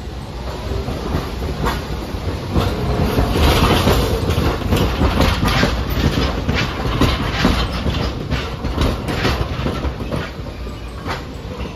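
Hiroden 3950-series Green Liner articulated streetcar rolling slowly past close by, its wheels clacking over the track in a rapid run of clicks over a low rumble. It is loudest about four seconds in and eases off near the end as the car slows into the stop.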